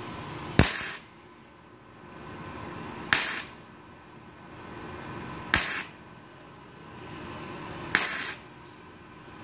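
Gasless flux-core MIG welding on thin galvanized steel with a Multipro MIG-MMA/TIG 160 A-SC set near 50 amps: four short bursts of arc crackle, each about half a second long and roughly two and a half seconds apart, making a row of short stitch welds.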